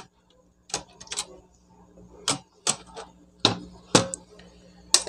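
Metal parts of a portable butane stove clicking and tapping as they are handled with a screwdriver, about eight sharp clicks at uneven intervals.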